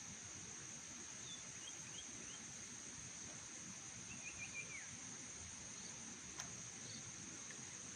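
Faint outdoor ambience of a steady, high-pitched insect trill, likely crickets, with a few short bird chirps and a single sharp click about six seconds in.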